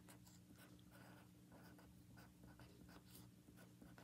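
Faint scratching of a felt-tip pen writing on paper in short strokes, over a low steady hum.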